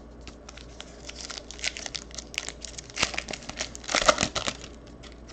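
Foil wrapper of a Panini Luminance football card pack crinkling and tearing as it is ripped open by hand, in irregular crackles with the loudest rips about three and four seconds in.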